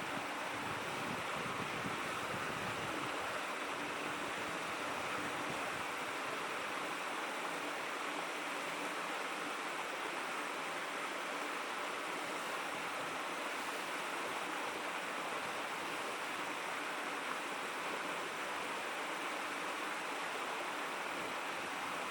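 Shallow stream babbling: a steady rush of running water with no breaks.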